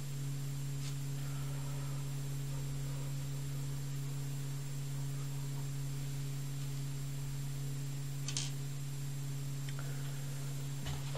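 Steady low electrical hum with a faint high whine over it, and a few faint clicks as small plastic puzzle parts and screws are handled on a desk.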